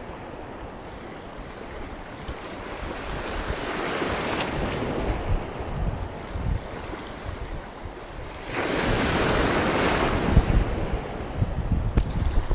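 Small waves washing over a shallow reef, with wind buffeting the microphone; the wash swells about a third of the way in and again, louder, about two-thirds through.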